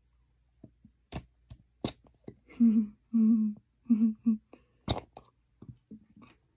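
A plastic squeeze bottle of white glue, held upside down and squeezed, sputters out four short, loud, flat buzzing squirts in quick succession as air and glue are forced through the nozzle, with a few sharp plastic clicks before and after.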